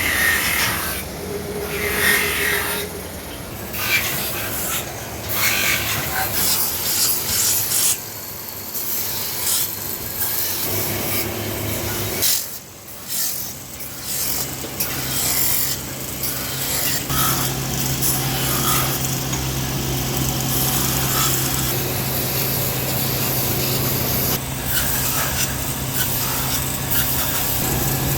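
Metalworking noise from kettle manufacture: scraping and rasping tool strokes with knocks, then a steady machine motor hum from a little past halfway.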